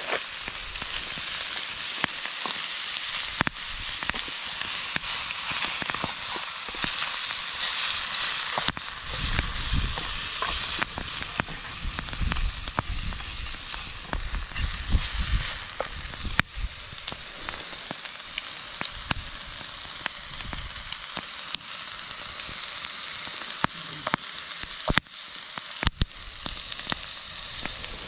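Bacon sizzling as it fries in a pan over a wood campfire, with occasional sharp pops. A low rumble comes in for several seconds around the middle.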